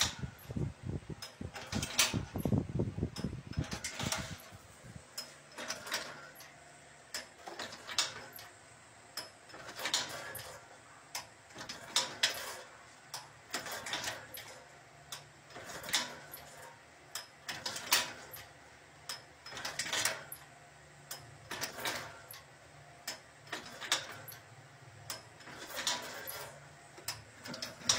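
Automated production machine running through its cycle: a sharp mechanical clack about every two seconds, with lighter clicks between, over a faint steady low hum.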